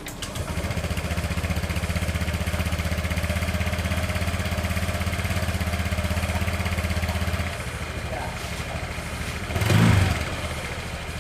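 Honda Vario 150 scooter engine running on test after its CVT pulley bearing was replaced. It rises to a higher steady speed just after the start and holds for about seven seconds, then drops back, with a brief louder burst near the end.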